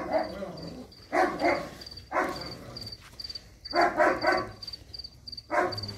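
Dogs barking in about five short bursts during rough play, with a cricket chirping steadily behind them, a little over two chirps a second.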